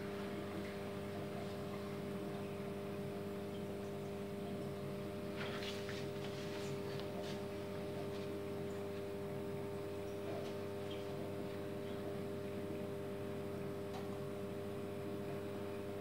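Gorenje SensoCare washing machine humming steadily with its drum at rest during a service-mode test, with brief water trickling and splashing about six seconds in.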